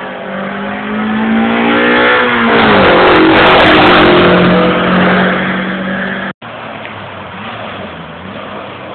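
Hill-climb race car accelerating past: its engine rises in pitch and grows loud, then drops in pitch as it goes by about three seconds in, and fades away. The sound cuts out for an instant about six seconds in.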